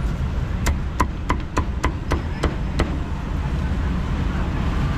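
Cleaver chopping roast pork on a thick wooden chopping block: about eight quick, sharp knocks, roughly three a second, stopping about three seconds in.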